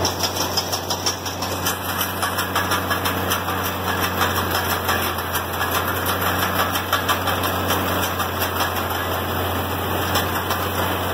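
International Harvester 706 tractor engine running steadily at working PTO speed, driving a Vermeer 504C round baler as it picks up a windrow, with a fast, even mechanical clatter over a low hum.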